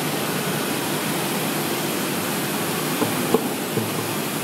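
Steady, even roar of foundry floor noise while moulds are being cast, with a couple of faint knocks about three seconds in.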